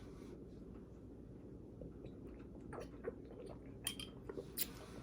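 Faint swallowing and a few small clicks, mostly in the second half, as a person sips carbonated Ramune soda from its glass bottle.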